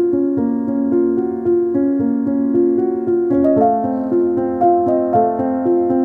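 Background piano music: a melody over held chords, the harmony shifting about three and a half seconds in.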